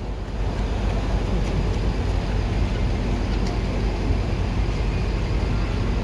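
Large diesel coach engine idling: a steady low rumble that holds even throughout.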